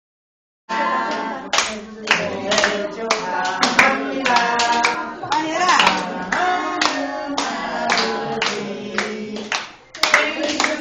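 A group of adults and children singing a birthday song together while clapping along in time, about two claps a second. There is a short lull just before the end, then the singing and clapping resume.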